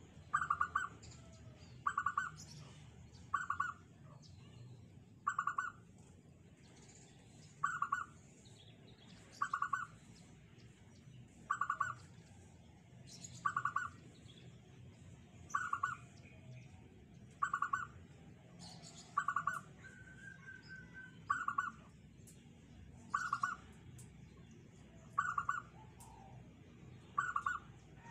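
Caged zebra dove (perkutut) cooing: short rolling coo notes repeated steadily, about one every two seconds.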